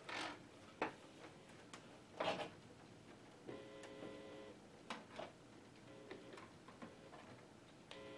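Scattered clicks and knocks of cables and plugs being handled at the back of a desktop computer, with a faint buzzing tone that comes and goes a few times in the second half.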